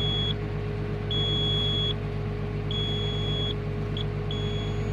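Komatsu PW180 wheeled excavator's warning buzzer beeping in a steady on-off pattern, about one long high beep every second and a half, with a couple of short broken beeps near the end, over the diesel engine running at idle. It is the machine's fault alarm, which the title puts down to low brake oil pressure.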